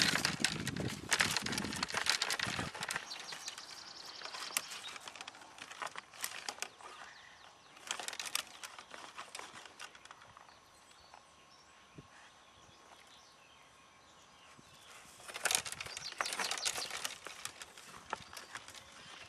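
Roe buck rubbing and thrashing its antlers against a young sapling's stems, the rubbing with which bucks mark their territory: rapid clicking, scraping and rustling of wood and twigs. It comes in dense bursts in the first few seconds and again near the end, with scattered knocks and a quieter lull in the middle.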